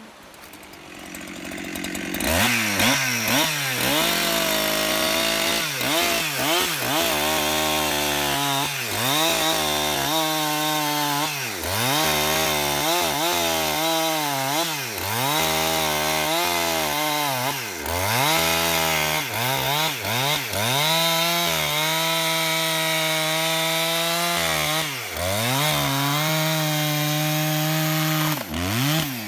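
Husqvarna 372XP two-stroke chainsaw ripping a rambutan log lengthwise. It starts about two seconds in, and its engine pitch repeatedly dips and climbs back every second or two, with longer steady stretches near the end.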